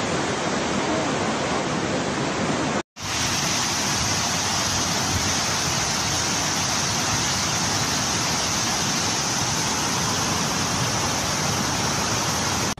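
Fast-flowing flash-flood water rushing down a street, a steady loud rushing noise. It breaks off briefly about three seconds in and resumes with a brighter hiss.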